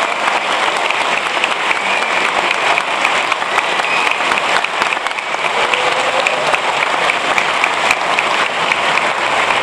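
A large audience applauding, dense and steady clapping with a few voices calling out through it.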